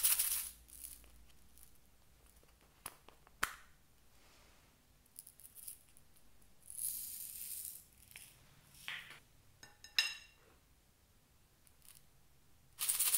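Small plastic cases and a tin of blue bugle beads being handled, with scattered clicks and taps. About seven seconds in, the beads rattle in the tin for about a second, and a sharp clink that rings briefly comes about ten seconds in.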